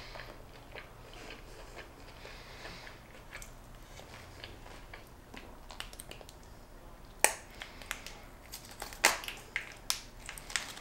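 Quiet eating sounds: soft chewing of a chicken nugget, then a few sharp clicks and crinkles between about seven and ten seconds in as a ketchup packet is squeezed over fries.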